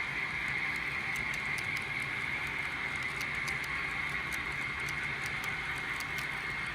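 HO-scale model locomotive running on the layout: a steady high whine with scattered light clicks, typical of the wheels passing over the rail joints.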